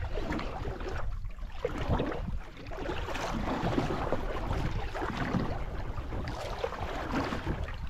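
Wind buffeting the microphone over sea water sloshing around a small outrigger boat: an uneven rushing noise with a heavy low rumble.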